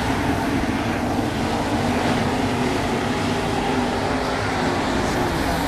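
A field of winged 410 sprint cars racing on a dirt oval, their 410-cubic-inch V8 engines running together in a loud, steady blend, with the pitch of individual cars rising and falling as they pass.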